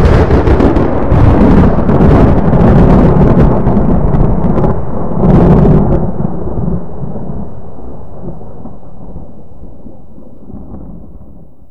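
Loud thunderclap just after a lightning flash, with several sharp cracks over about the first six seconds, then a low rumble that slowly fades away.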